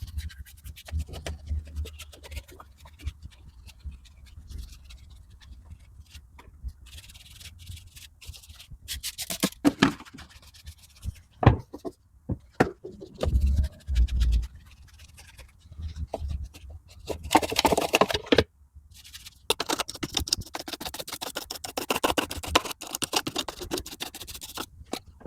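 Hand scrubbing on car interior surfaces: irregular scratchy strokes with scattered clicks and a few low knocks, then a long, dense stretch of steady scrubbing near the end.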